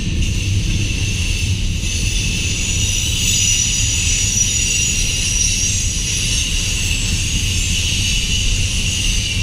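Freight train tank cars rolling past: a steady low rumble from the wheels on the rails, with a steady high-pitched whine over it.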